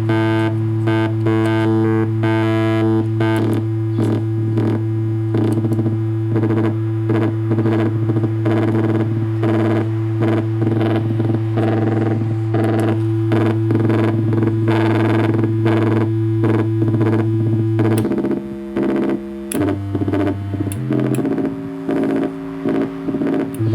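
Proton DIY one-chip synthesizer (a build of Syntherjack's Totoro design) played by a step sequencer through its CV input. A steady low drone and held pitches sit under a fast pulsing pattern. About three-quarters of the way through, the low drone drops out and the notes step between pitches, then the drone comes back near the end.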